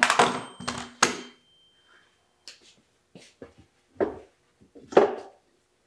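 Cordless brad nailer set down on a workbench top with two hard knocks and a brief ringing, followed by faint clicks and two duller thumps of tool handling.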